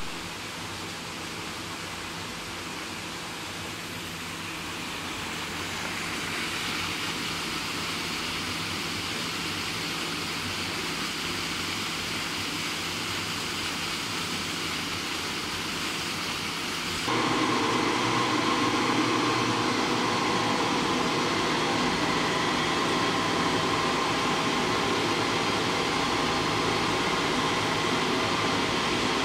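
Water rushing steadily from a micro hydro plant's tailrace outflow. A little over halfway it changes suddenly to a louder, steady machine hum with several steady tones: the vertical propeller turbine and generator running under load.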